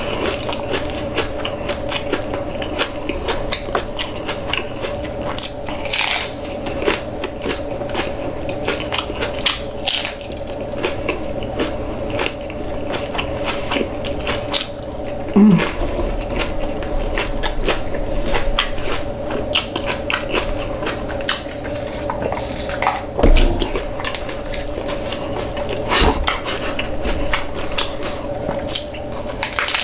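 Close-miked chewing and biting of crunchy hard-shell tacos: a dense run of crackling crunches and wet chewing. A steady hum runs underneath.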